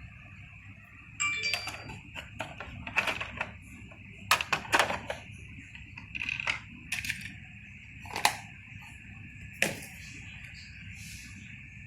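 Radio-controlled model excavator at work: a steady high-pitched whine with irregular sharp clicks and clattering knocks.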